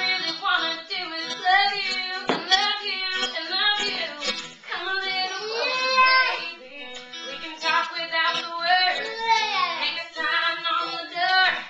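A girl singing a song, phrase after phrase, with no pause.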